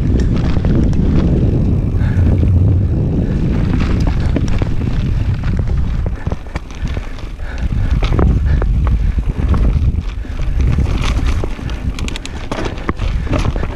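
Mountain bike ridden fast down a dirt trail: wind rushing over the microphone, with tyre noise and frequent sharp rattling clicks from the chain and frame over rough ground. The wind rumble eases for a moment about halfway through and again near the end.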